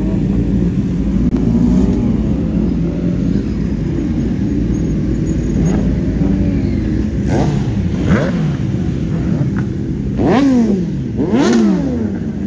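Several motorcycles running and revving as they pull away, engine pitch rising and falling, with sharp rev sweeps about seven and eight seconds in and the loudest two near the end.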